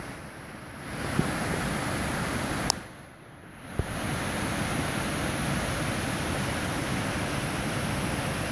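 Wind buffeting the phone's microphone: a steady rushing noise that drops away twice for about a second, with a few light clicks.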